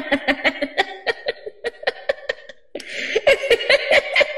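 A woman laughing in quick repeated pulses, in two bouts with a short pause about two and a half seconds in.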